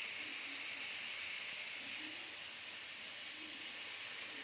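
Chopped onions sizzling steadily in hot oil in a pan on a high flame.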